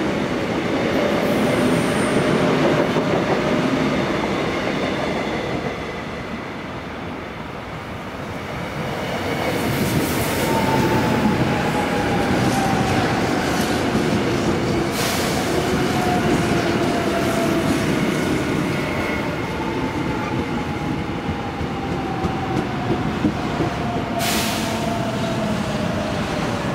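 Korail Line 1 electric commuter trains running on the tracks, wheels on rail. From about ten seconds in, a whine falls steadily in pitch, with a couple of sharp clanks.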